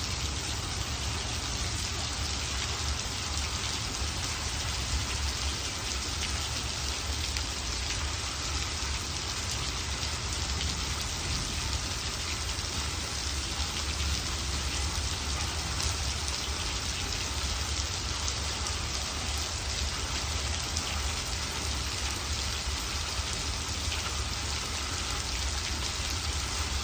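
Steady rain falling, a dense even patter of drops hitting surfaces, starting abruptly and holding at one level throughout.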